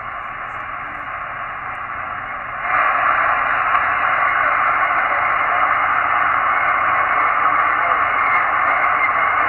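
HF amateur radio transceiver receiving on 40-metre lower sideband with no voice on the channel: a steady band-limited hiss of static from its speaker, which gets louder about two and a half seconds in.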